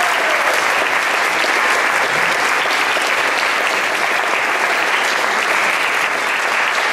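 Concert audience applauding, a steady, continuous clapping.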